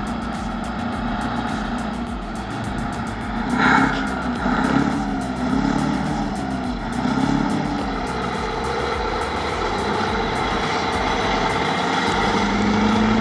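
Heavy diesel earthmoving machine's engine running, its pitch rising and falling between about four and eight seconds in as it works under load, with a short sharp knock about three and a half seconds in.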